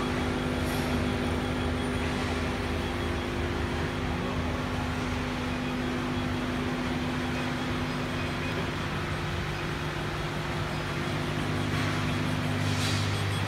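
Steady mechanical hum and fan whir from a CO2 laser cutting machine's running support equipment, such as its water chiller. The pitch of the hum shifts about two-thirds of the way through.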